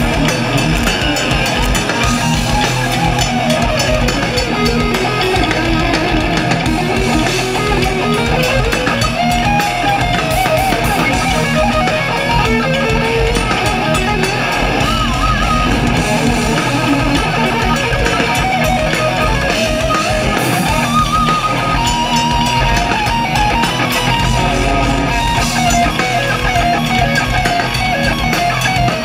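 Thrash metal band playing live: distorted electric guitars, bass and drum kit in a loud, dense, unbroken mix, with a guitar line sliding up and down in pitch over it.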